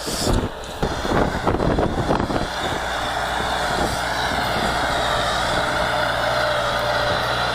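Tümosan tractor's diesel engine running steadily under load as it pulls a tiller through the field, with uneven wind noise on the microphone for the first two seconds or so.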